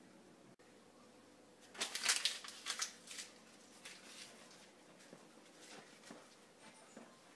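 Rustling and shuffling of a person on the move: a cluster of short crisp scuffs and rustles about two seconds in, then fainter scattered ones.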